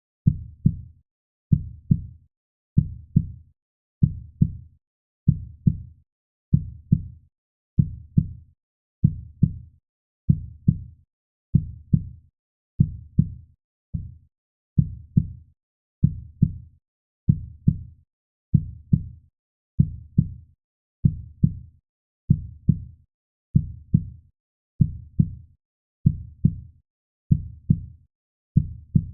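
Heartbeat sound: a steady, even rhythm of low, muffled lub-dub double thumps, a little over one beat a second, with nothing playing between the beats.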